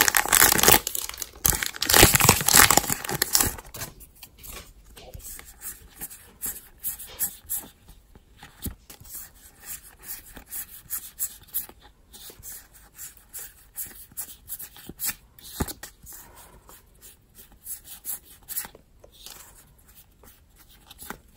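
A Weiss Schwarz booster pack wrapper torn open with loud rustling tearing for the first three seconds or so. After that come quieter scattered clicks and rustles as the trading cards are handled and fanned out.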